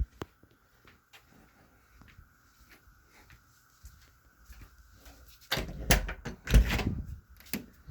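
Thuds and bangs from the neighbours' flat: a few faint knocks and ticks, then a cluster of heavier, door-like thumps starting about five and a half seconds in. A faint steady hum runs underneath.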